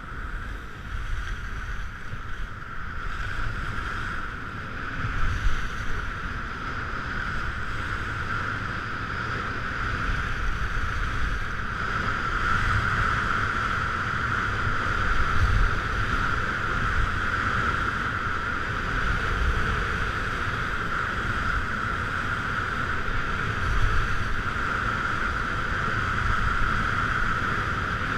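Wind rushing over a helmet or body-mounted GoPro's microphone and skis sliding on snow during a downhill ski run. The rushing builds over the first dozen seconds and then holds steady, with a few brief gusts.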